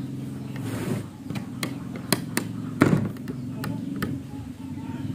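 Hardwood beam pieces of a nail-free splice joint knocking and clacking as they are slid and pressed together by hand: a string of sharp wooden knocks, the loudest about three seconds in, over a steady low hum.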